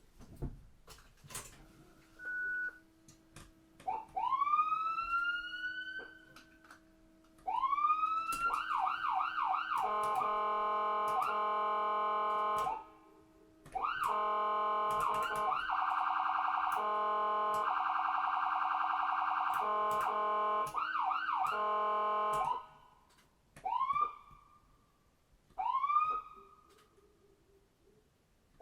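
Electronic ambulance siren running through its modes. It starts with long rising wails and a fast yelp, then gives long loud blaring tones with a quick warble in the middle, broken by a short pause. Near the end it gives short rising whoops about two seconds apart.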